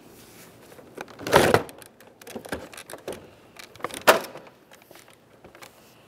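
Plastic door trim panel of a 2005 Chevrolet Tahoe being lifted off the door and pulled away. There is a scraping rustle about a second and a half in, scattered small clicks and knocks, and one sharp click about four seconds in.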